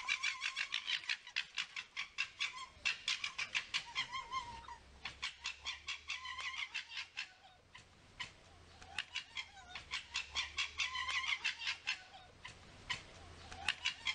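Red fox vocalising in long runs of rapid, stuttering calls, about five a second. There are short lulls about five, eight and twelve seconds in.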